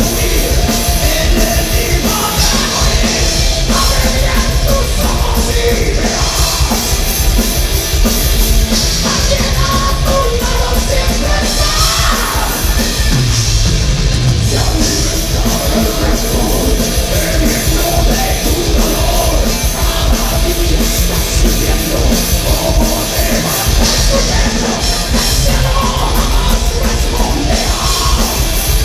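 Heavy metal band playing live: distorted electric guitar, bass and drum kit, with a singer shouting and singing into the microphone.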